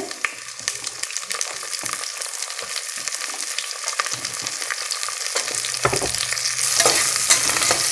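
Sliced onion sizzling in hot ghee in an aluminium pressure cooker, stirred with a steel slotted spatula that ticks and scrapes against the pot. The sizzle grows louder over the last couple of seconds.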